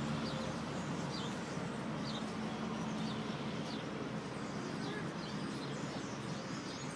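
A large flock of black birds calling, many short high chirps scattered one after another over a steady background hum.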